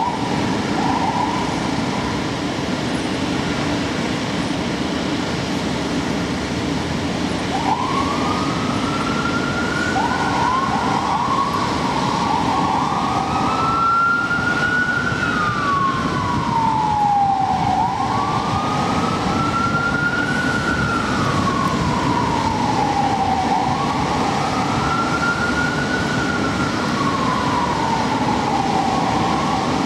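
Fire truck siren: two short chirps at the start, then from about a quarter of the way in it winds up into a slow wail that rises and falls about every six seconds, over a steady low rumble.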